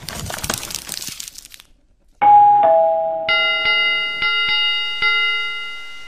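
Animation sound effects: a crackling noise for about a second and a half, then a falling two-note ding-dong chime about two seconds in, followed by five bell strikes that ring on, the notification-bell sound of a YouTube subscribe reminder.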